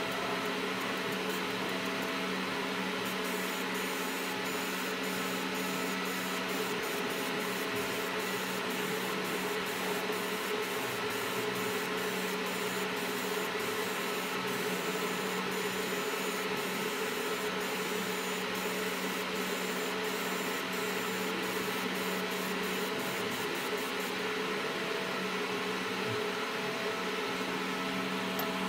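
Fiber laser marking machine running with a steady fan hum. From about three seconds in until a few seconds before the end, a rapid, irregular run of high-pitched ticks comes from the laser marking a logo onto a cylindrical part held in its rotary chuck.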